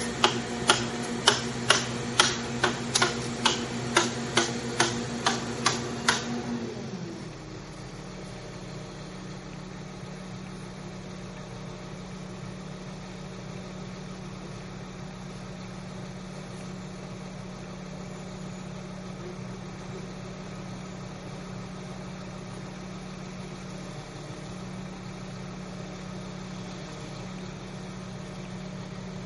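Crane engine running at raised revs with a loud regular clicking, about two clicks a second; about six seconds in the clicking stops and the engine drops to a steady idle.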